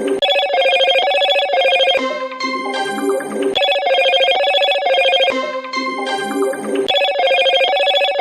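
A looping electronic ringtone melody: a short chiming phrase of quick repeated notes over a lower line, starting over about every three and a third seconds.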